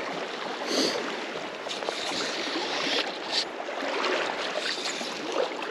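South Platte River flowing past, a steady rushing of water, with a couple of brief louder hisses.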